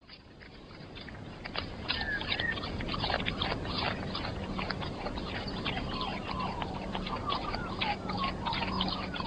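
Koala chewing eucalyptus leaves: dense, irregular crunching and crackling clicks, with a few short bird chirps in the background.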